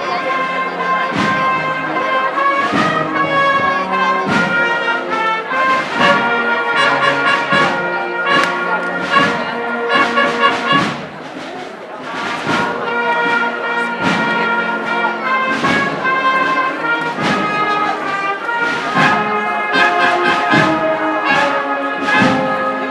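A brass band playing a processional march for the Holy Week float, with a regular beat under sustained brass chords; it drops briefly quieter about halfway through.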